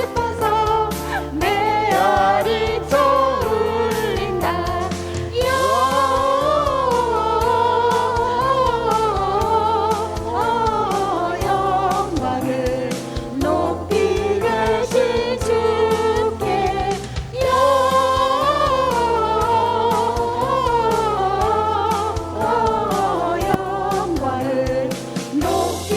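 Music: a group of voices singing a song together over an accompaniment with a steady beat and bass line.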